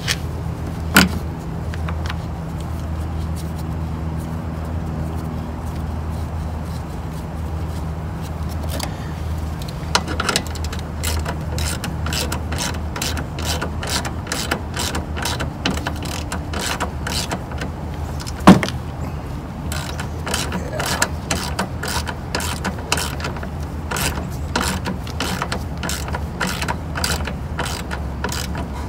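Hand ratchet clicking in quick, repeated strokes, as if working a headlight mounting bolt. A few sharp knocks come through, the loudest about two-thirds of the way in. A steady low hum runs underneath.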